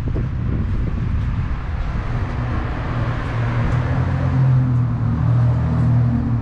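Motor vehicle running: a steady low engine hum with road noise, the noise swelling around the middle and the hum growing stronger in the second half.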